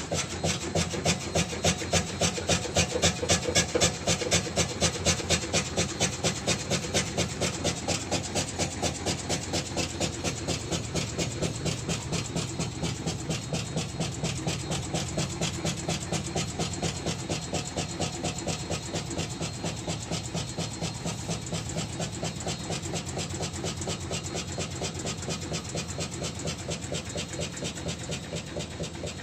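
Shock absorber being pumped over and over, giving a rubbing noise on every stroke at about two to three strokes a second, the rhythm quickening slightly later on. This is the abnormal noise the shock absorber is making.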